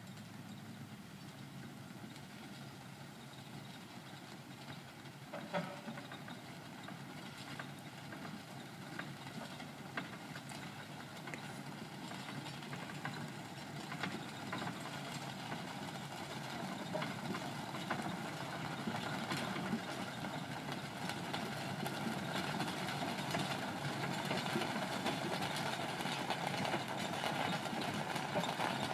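A steam traction engine working slowly as it pushes a road roller, with faint regular beats, one sharp click about five seconds in, and the noise growing steadily louder as it draws nearer.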